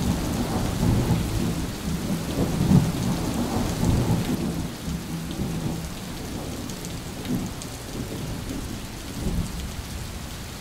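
Thunderstorm: deep thunder rumbling over steady rain. The rumble is heaviest in the first few seconds and dies down about halfway through, leaving mostly rain with a couple of fainter rolls of thunder.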